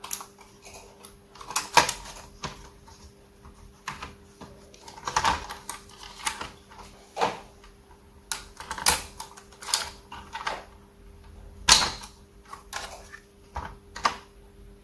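Irregular sharp clicks and taps of small hand tools and parts being handled on an electronics repair bench, the loudest about two seconds in and near the end, over a faint steady hum.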